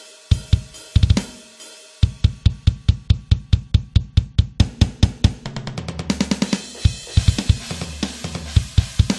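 Deathcore drum kit playing alone, with no guitars or vocals: a few spaced hits, then about two seconds in a steady run of strokes about six a second, and from about six seconds in a dense wash of cymbals over fast bass drum.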